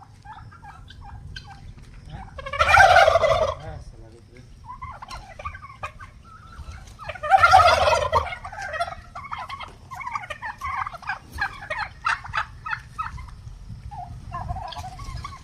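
Domestic turkeys gobbling: two loud rattling gobbles about five seconds apart, with softer, quicker calls and clucks from the flock in between.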